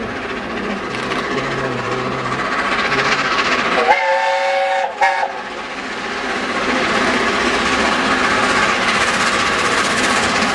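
Approaching steam locomotive sounds its whistle about four seconds in: a chord of several notes held for about a second and a half, briefly broken near the end. Afterwards the running train grows steadily louder as it nears.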